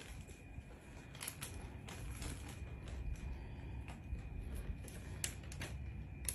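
A basset hound chewing dry cereal rings, with scattered short, sharp crunches and clicks.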